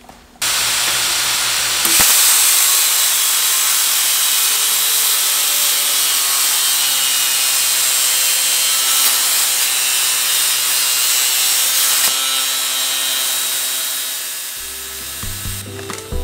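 Steel being cut: an angle grinder's cutting wheel and an Arccaptain CUT50 plasma cutter going through quarter-inch steel flat bar, a loud, steady, harsh cutting noise. It steps up about two seconds in and drops near the end, where music comes in.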